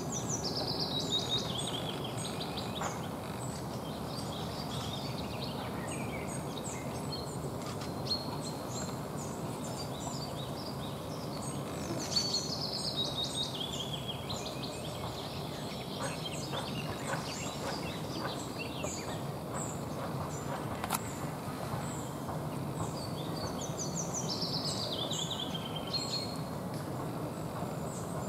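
Woodland songbirds: one bird sings a short song of notes stepping down in pitch three times, about twelve seconds apart, among scattered higher chirps, over a steady low background hum.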